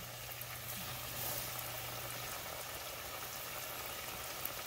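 Cornmeal-battered fish fillets sizzling in a pan of hot oil, a steady crackle of bubbling fat.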